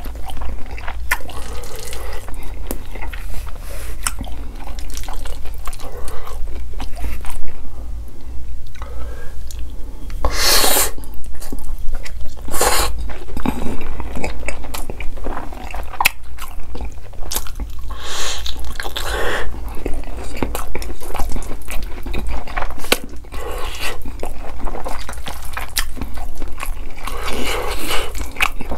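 A person eating noodles: wet chewing and mouth sounds, broken by a few longer slurps, the longest about eighteen seconds in.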